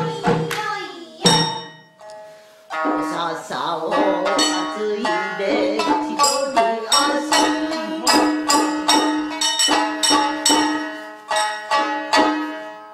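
Shamisen accompaniment for a geisha party song, with a voice singing along. A few sharp plucks come in the first second or so, then from about three seconds in a dense run of plucked notes under a held sung line.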